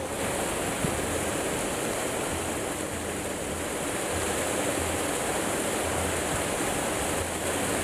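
River water rushing and splashing steadily.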